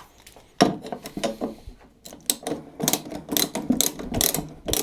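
Ratchet wrench clicking as it is worked back and forth on a 10 mm nut: a few separate clicks, then a quick even run of about three or four clicks a second.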